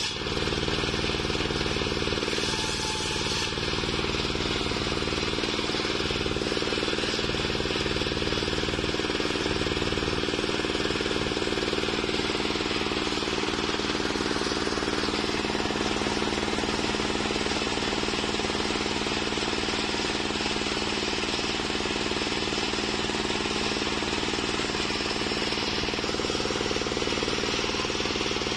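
Homemade engine-driven circular saw running steadily, its large blade ripping waru timber, with a constant engine drone under the whine of the cut.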